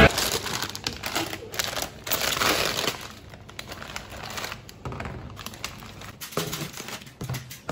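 Plastic packaging bag crinkling and rustling as it is opened and rummaged through, with a few light knocks as film-covered bowls are set down on a steel table.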